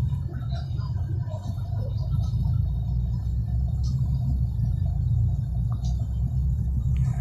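Steady low rumble of engine and road noise heard inside a moving bus, with a couple of light rattles.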